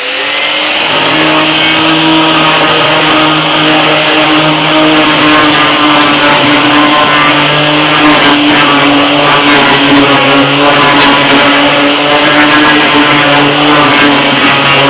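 Metabo LF 724 S paint-removing router spinning up with a rising whine over the first second, then running steadily under load as its carbide milling head strips layers of blue paint overspray off a wooden board.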